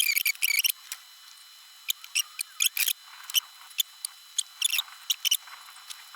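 Soldering iron on flux-coated joints of PS5 DualSense thumbstick modules, with the flux sizzling and spitting in short, irregular, high-pitched crackles and squeaks.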